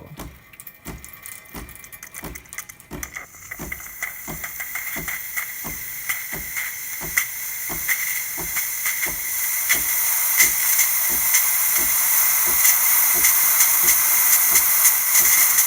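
DeLonghi Magnifica espresso machine's pump pulsing in a steady rapid tick, about three beats a second, as the steam wand purges and builds up steam. A hiss of steam starts about three seconds in and grows steadily louder.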